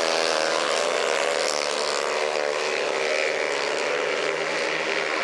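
Several 500cc single-cylinder speedway bikes racing on a dirt track, their engines running hard together in a steady note made of several overlapping pitches.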